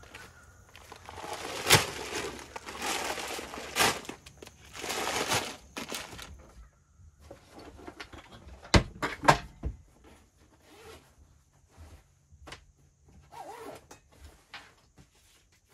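Gear being handled and put away in a camper: rustling for a few seconds, then a few sharp knocks from the overhead cabinet and small scattered handling noises.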